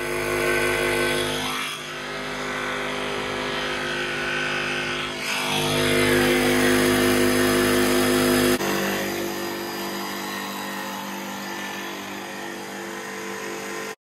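Jigsaw running steadily as it saws through a fibreglass boat deck panel, a continuous motor hum with a hissing cutting noise. The tone shifts a few times and changes abruptly about two-thirds of the way through.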